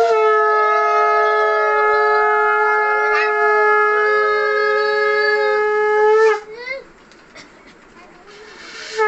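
Conch shell (shankha) blown in one long steady blast of about six seconds that sags in pitch as it stops; after a short pause a second blast begins just before the end.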